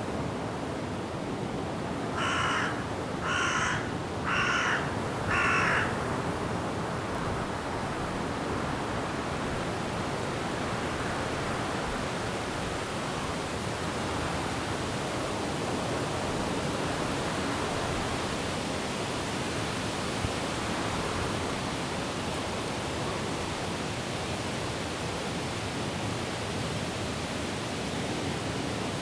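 Steady rushing noise of rain falling and wind blowing through forest trees. About two seconds in, a bird gives four loud harsh calls about a second apart, each lasting about half a second.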